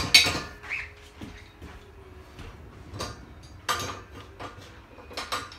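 Metal knocks and clanks of a motorcycle carrier rack being assembled by hand, with parts such as the tie-down loops sliding and knocking on the crossbar. The sharpest knock comes right at the start, with a few more about three and four seconds in and again near the end.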